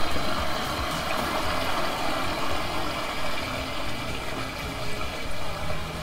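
Sump pump discharge water gushing out of a PVC pipe into a small, water-filled 50-gallon dry-well basin, splashing and churning steadily, with a low engine hum underneath.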